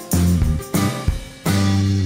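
Live band playing an instrumental passage: guitar and bass with drums hitting accented chords, about three stabs less than a second apart.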